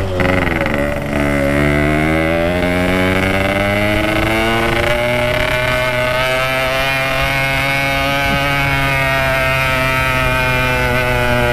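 Yamaha RX-King's two-stroke single-cylinder engine pulling under throttle on an uphill climb: the revs dip in the first second, then rise steadily for about four seconds and hold level.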